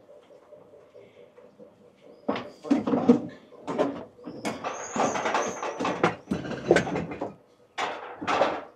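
Irregular knocking and clattering of items being shifted about in a wooden storage corner, with a few short high squeaks around the middle.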